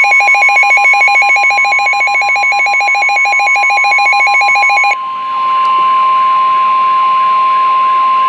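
NOAA Weather Radio warning alarm: a steady, loud tone of about 1 kHz, the 1050 Hz signal that comes before a warning broadcast. For about the first five seconds a rapidly pulsing, ringing electronic alarm sounds over it, then the steady tone goes on alone.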